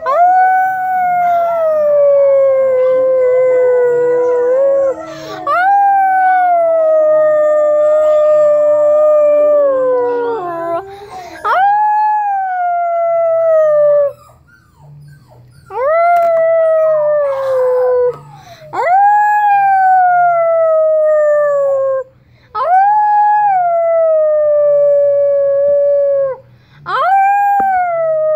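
Dog howling: a run of about seven long howls, each rising quickly and then sliding slowly down in pitch, with short breaks between. For the first ten seconds or so a second, lower howling voice overlaps.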